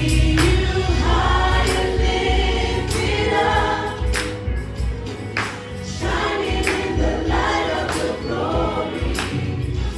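Choir singing a gospel worship song over band accompaniment, with a heavy bass line and regular percussive hits.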